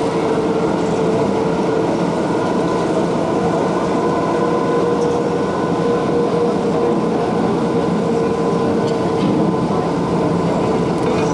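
Loud, steady drone with a constant hum-like tone running through it, unchanging throughout.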